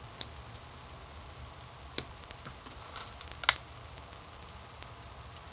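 A few sharp, small clicks and taps from plastic makeup containers being handled, the loudest about three and a half seconds in, over a faint steady low hum.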